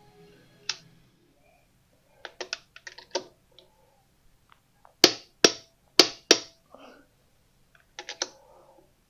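Socket wrench ratcheting on the lug nuts of a wheel being tightened: short runs of quick metal clicks, with four loud single clicks about half a second apart near the middle.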